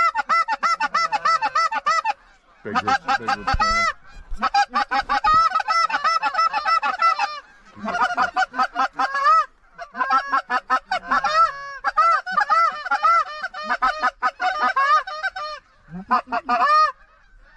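Loud, rapid runs of Canada goose honks and clucks, coming in bursts of one to three seconds with short breaks between them.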